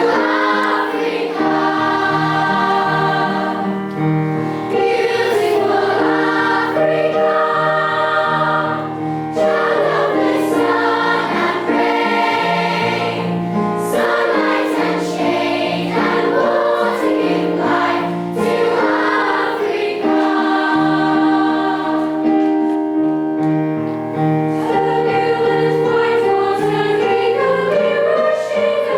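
Music of a choir singing in harmony, sustained chords over a moving bass line.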